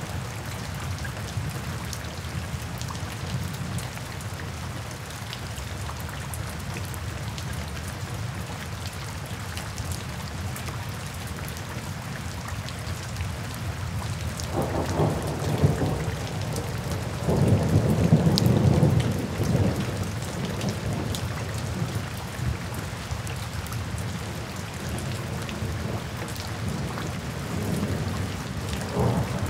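Steady rain falling, with thunder rumbling in the distance twice in the middle, the second rumble longer and louder.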